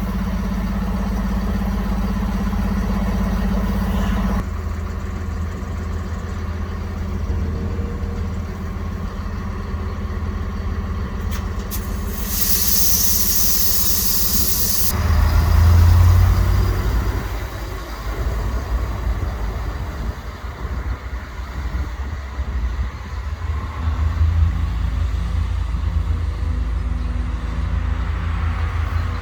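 Railway locomotive engine running steadily, with a burst of compressed-air hiss lasting about three seconds roughly twelve seconds in.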